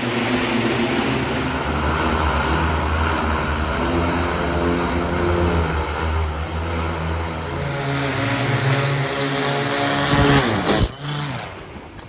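The many propellers of the Cyclocar Flyter multirotor prototype whirring together as a steady layered hum with a hiss of rotor wash. Near the end the pitch sags and a few loud crashes come as the craft comes down and tips onto its side. The sound then dies away.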